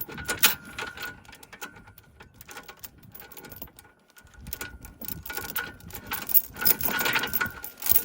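Steel tie-down chain links clinking and rattling as a knot is worked out of the chain by hand, busy at the start, sparser in the middle and busy again in the last few seconds.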